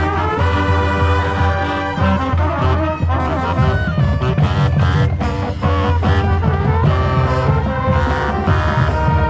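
College marching band playing loudly, brass to the fore, over long sustained low bass notes and drum hits.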